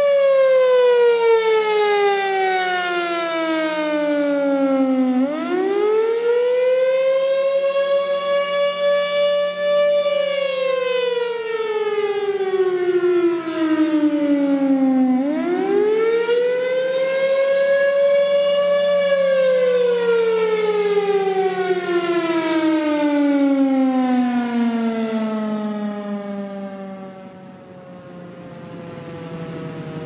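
Federal Thunderbolt 1000 civil defense siren with its rotating horn, sounding the attack signal. It gives a wailing tone that falls and rises in pitch about every ten seconds. Near the end it winds down, the pitch sliding lower as it fades.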